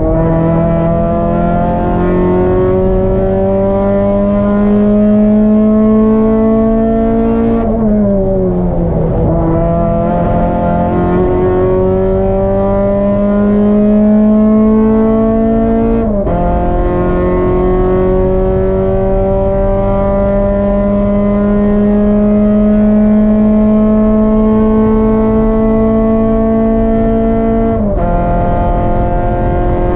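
Race car engine pulling hard, its pitch climbing slowly through long stretches in each gear, with sudden drops at gear changes about 8, 16 and 28 seconds in. After the drop near 8 seconds the pitch keeps falling for a couple of seconds as the car slows, then climbs again.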